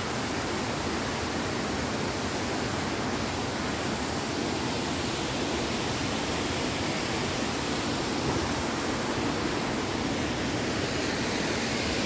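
Steady rushing of a waterfall, an even roar with no rise or fall.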